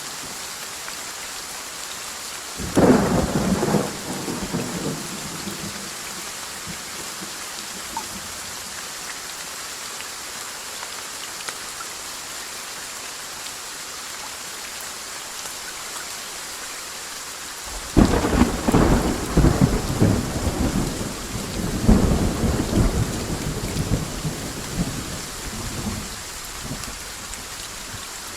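Steady rain with two peals of thunder: a sudden clap about three seconds in that dies away within a couple of seconds, and a longer rolling peal starting about eighteen seconds in that rumbles on for several seconds.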